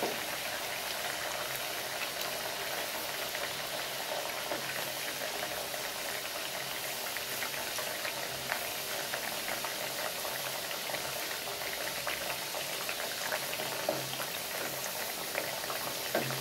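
Mathri, discs of fenugreek and flour dough, deep-frying in hot oil over a medium flame: a steady sizzle and bubbling with many fine crackles.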